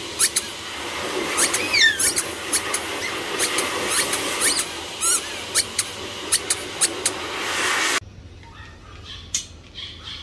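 Pomeranian puppies at play giving rapid high-pitched squeaks, with a rising yelp about two seconds in. About eight seconds in the sound drops abruptly to fainter chirping squeaks.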